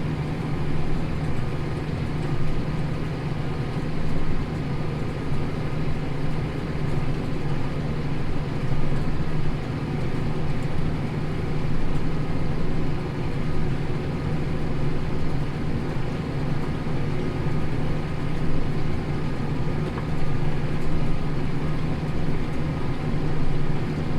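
Tractor engine running steadily under load, pulling a plough through wheat stubble at about 4.5 miles an hour.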